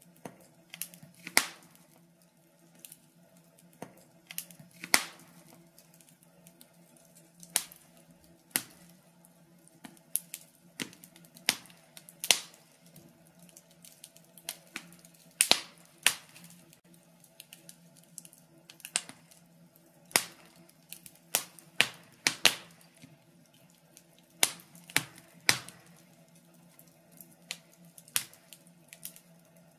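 Wood fire crackling in a fireplace: irregular sharp pops and snaps, a few every second and of varying loudness, over a faint steady low hum.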